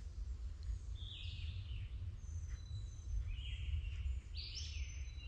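Songbirds singing in the woods around the pond: several short chirping phrases, about one, three and four and a half seconds in, over a steady low rumble.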